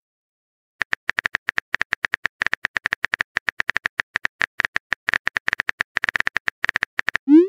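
Rapid, slightly irregular keyboard-tap clicks, about eight a second: a phone's on-screen keyboard typing sound effect as a message is typed out. Just before the end a short rising whoosh tone starts, the message-send sound.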